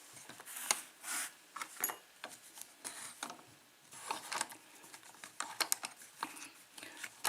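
Light, irregular metal clicks and small rattles of a just-picked Dexter pin-tumbler lock and its pick tools being handled.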